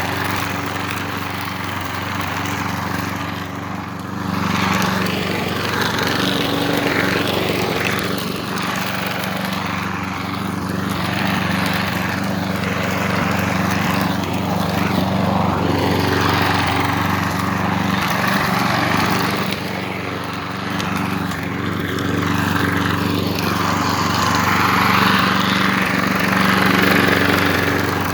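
2020 Craftsman lawn mower, fitted with a replacement engine, running steadily under load while mowing. A rushing noise swells and fades every few seconds over the steady engine hum.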